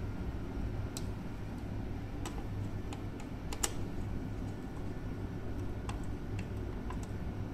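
Scattered light clicks and ticks of a small screwdriver and wire on the screw terminals of a plastic break-glass unit, the sharpest about three and a half seconds in, over a steady low hum.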